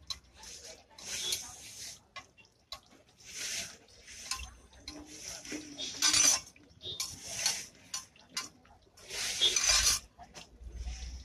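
Skewered rolls frying in shallow oil on a large flat griddle, sizzling in hissing bursts that swell and fade every second or two, with the clink and scrape of metal tongs and spatula against the griddle.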